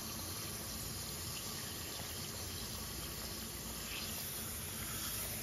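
Garden hose with a spray nozzle running water into containers of sprouting seeds, a steady even rush of water as they fill.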